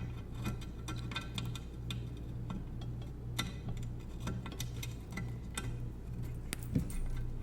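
Light, irregular clicks and taps of a small screw being fitted by hand through a hole into a metal shelf bracket, over a steady low hum.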